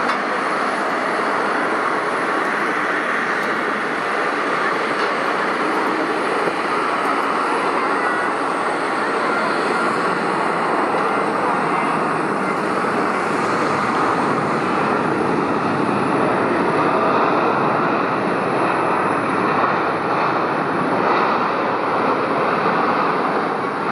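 Steady rushing noise of jet airliner engines as aircraft land on the runway, swelling slightly about two-thirds of the way through.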